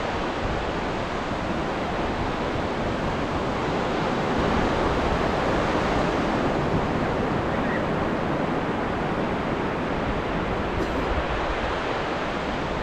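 Indian Ocean surf washing onto a beach, a steady rush of breaking waves that swells slightly in the middle.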